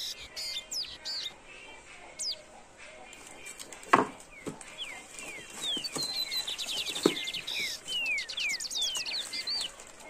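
Small songbirds chirping and whistling, with many quick falling notes. Two sharp clicks from packaging in a cardboard box being handled come about four and seven seconds in, the first being the loudest sound.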